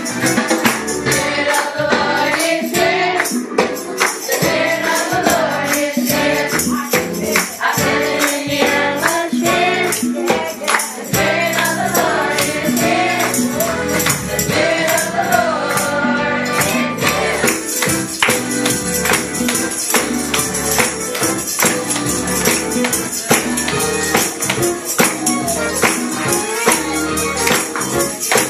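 Gospel choir of adults and children singing together, with tambourines shaken and struck in a steady beat.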